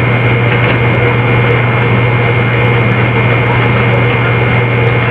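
Steady computer hum and hiss filling a quiet room recording, loud and unchanging, with a low drone and a higher whine held throughout.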